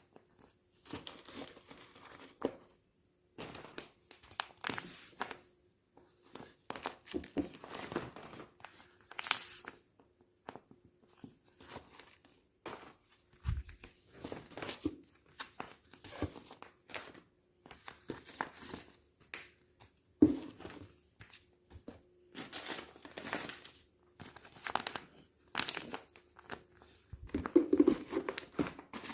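Plastic packaging crinkling and rustling in irregular bursts, with tearing sounds and small clicks, as parcels are packed by hand. A faint steady hum runs underneath.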